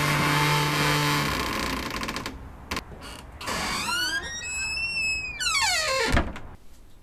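Electronic sound effect: a rushing hiss for about two seconds, then a whistling tone that rises, holds, and swoops down low near the end.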